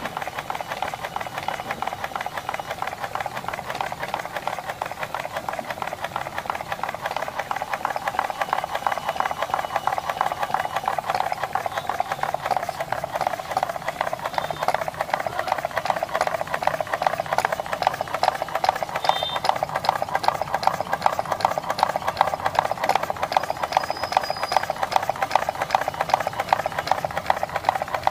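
Homemade single-cylinder petrol engine running steadily with a fast clatter. Its cylinder is made from a Gypsy brake wheel cylinder, and it grows a little louder over the first several seconds.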